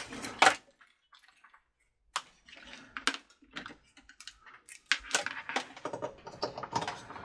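Clicks, ticks and light rattles of a power cord and its plug being handled. A sharp click comes about half a second in, then a quiet stretch. The handling sounds come more thickly over the last two seconds.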